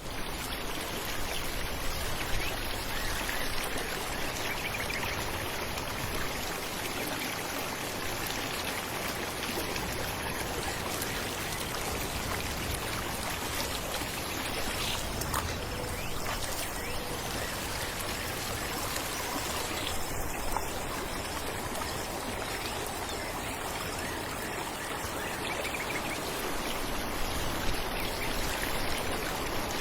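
Falling water splashing and rushing steadily, like a small waterfall or cascading stream.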